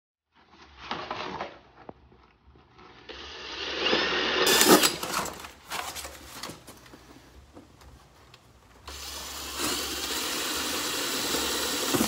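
Cordless drill drilling holes in three runs: a short one, a louder one about four seconds in, and a steady one of about three seconds near the end.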